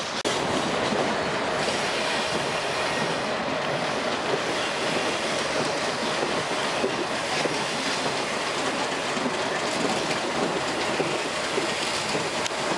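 Moving train heard from a Budd-Mafersa stainless steel passenger car: wheels rolling and clattering over the rails, with a faint steady squeal from the wheels as the train rounds a curve.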